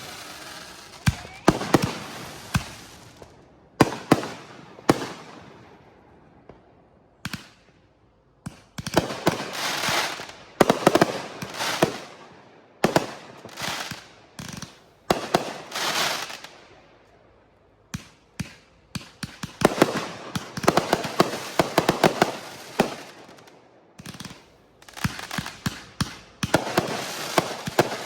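Hammer & Anvil finale firework cake firing volley after volley of loud bangs with crackle and echo. The shots come in rapid clusters of a few seconds each, with short pauses between them.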